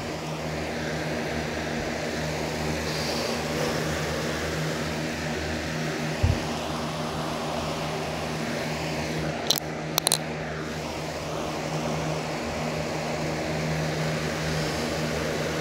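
Box fan running with a steady hum. A low thump about six seconds in and a few sharp clicks around ten seconds in.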